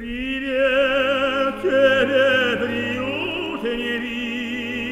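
Operatic tenor singing with orchestral accompaniment. The voice comes in at the start with long, held notes and a wide vibrato.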